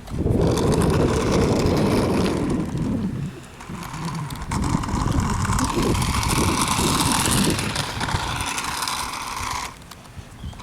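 Toy remote-control car driving, its small electric motor and gears whirring and grinding. A steady whine joins about halfway through, and the sound cuts off suddenly shortly before the end.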